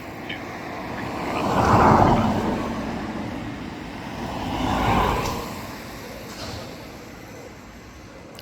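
Road traffic: two vehicles pass one after the other, each swelling and fading, the first about two seconds in and the second about five seconds in.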